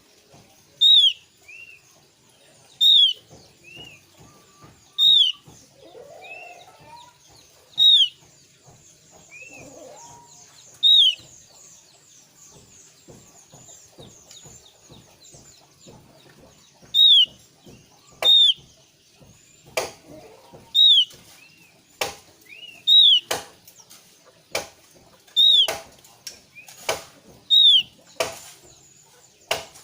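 Javan grey-throated white-eye (opior Jawa) calling: a short, bright note sliding down in pitch, repeated every one to two seconds, each followed by a softer, lower note. In the second half, sharp clicks fall between the calls, and the calls come faster.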